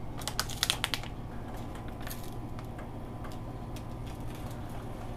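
Backing paper on a self-adhesive EVA foam mat being handled and peeled, crackling in a quick cluster of sharp clicks in the first second, then faint scattered ticks, over a steady low hum.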